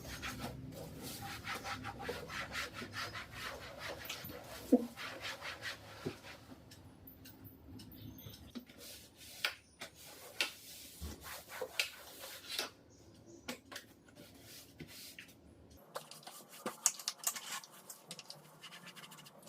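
Soapy scrubbing on the outside of a household refrigerator, in quick rubbing strokes that become more scattered after about six seconds. One sharp knock comes just under five seconds in.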